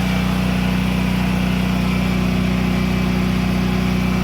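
An electric appliance running, with a loud, steady motor hum and a fast fine rattle underneath; it is working.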